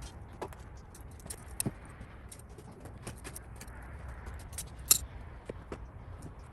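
Scattered light clicks and knocks of firewood, with one sharp knock about five seconds in.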